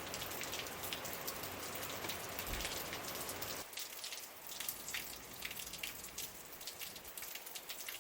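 Dense, fine pattering and crackling of water droplets, with a low rumble underneath that drops away a little under halfway through.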